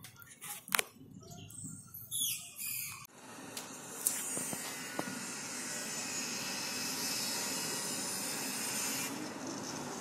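A few clicks and short squeaks, then about three seconds in a steady rushing hiss of the approaching thunderstorm sets in abruptly.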